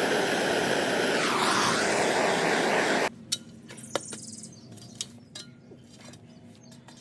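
Loud steady rushing hiss with a wavering tone in it that cuts off abruptly about three seconds in, followed by a few light clicks and taps.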